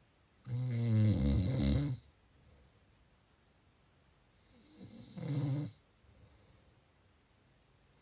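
A sleeping person snoring: two snores, the first loud and about a second and a half long, the second shorter and quieter about four seconds later.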